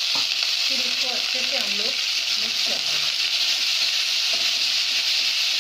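Spiced tempering oil (mustard seeds, cumin, chilli and turmeric) sizzling hard and steadily in a nonstick kadai, with water just poured into the hot oil, while a silicone spatula stirs it.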